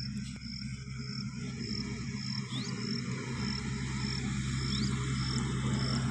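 Cricket chirping in a steady rhythm, a short high pulse a little under twice a second, over a steady low drone that slowly grows louder.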